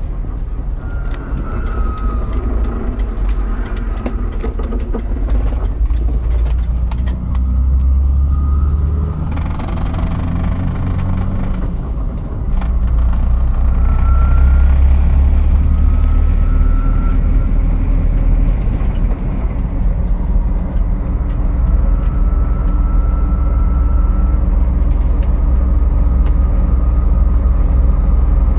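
2001 Jeep Wrangler TJ running with a heavy low rumble, over which a high-pitched whine comes and goes several times. The whine seems to start at random but follows engine RPM.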